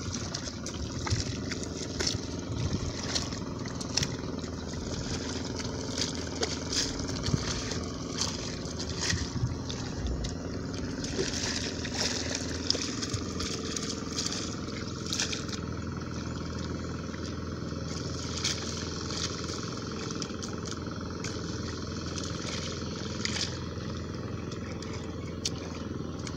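A wooden paddy leveler and hoe scraping and splashing through wet rice-field mud in short irregular strokes, over a steady engine drone in the background.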